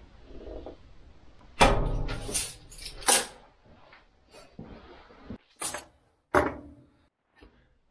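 A workshop door being shut with a heavy thump about a second and a half in, followed by several sharp knocks and clunks.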